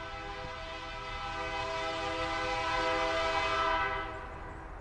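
Air horn of a Lake State Railway diesel freight locomotive sounding one long blast, a steady chord of several notes that ends about four seconds in.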